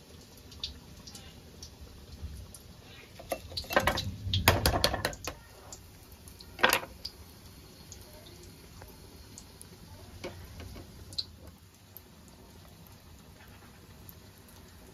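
Kitchen utensils clinking and scraping against a vessel during bajji preparation: scattered light taps, a dense run of clatter about four seconds in, and one sharp clank near the seven-second mark.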